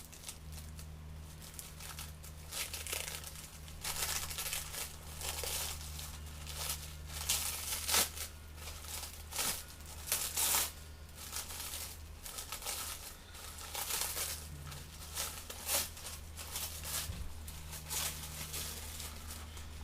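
Packaging being crinkled and torn open by hand: irregular rustling and crackling, over a steady low hum.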